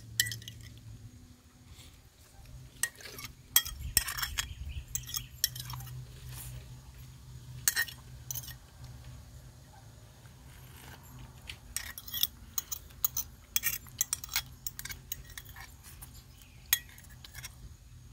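Metal fork clinking and scraping against a plate in scattered taps as the last food is cleaned off it, with a busier run of clicks in the second half.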